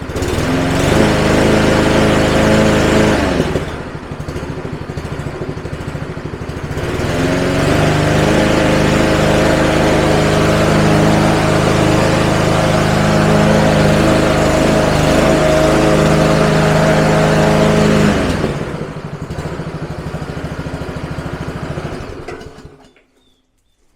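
Freshly fitted replacement four-stroke petrol engine on a lawnmower, running as its throttle is tested: it revs up, drops back to idle, revs up again and holds for about ten seconds, settles to idle, and is shut off near the end.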